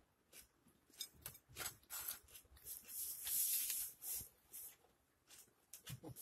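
Close-miked eating sounds from a bite of a pulled pork, cheese and onion sandwich on soft white bread, then chewing with the mouth closed: wet mouth clicks and smacks. About three seconds in there is a louder breathy, hissy stretch lasting about a second.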